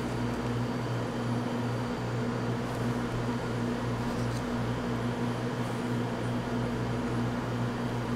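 A steady low machine hum under an even hiss, like a running fan or cooling unit, with a couple of faint ticks about three and four seconds in.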